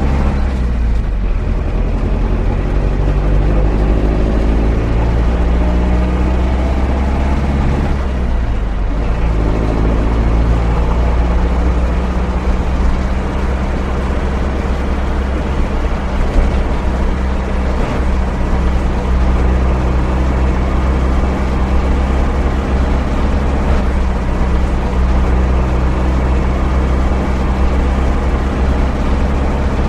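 Van engine running under way: it pulls up in pitch at first, drops and climbs again about eight seconds in as with a gear change, then holds a steady drone over a heavy low rumble for the rest.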